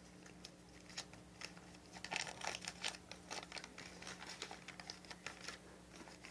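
Faint crinkling and clicking of small folded paper slips being rummaged through and unfolded by hand, busiest in the middle, over a low steady hum.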